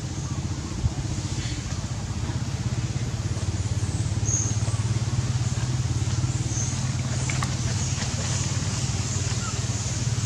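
A small engine running steadily at a low, even pitch with a fast flutter, over a light hiss.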